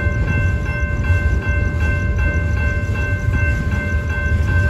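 Union Pacific freight train of autorack cars rolling past at close range: a steady low rumble of wheels on rail with a steady high ringing held over it.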